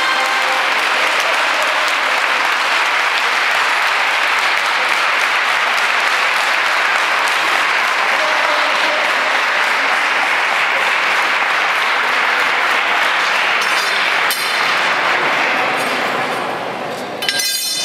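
A crowd applauding steadily in a reverberant church, the clapping thinning out and fading near the end.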